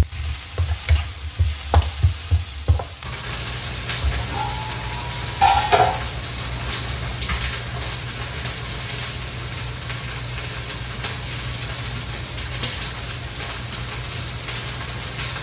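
Green chillies and fried tofu strips sizzling in a nonstick wok, stir-fried with a wooden spatula: the spatula knocks against the pan several times in the first three seconds, then the frying settles into a steady hiss.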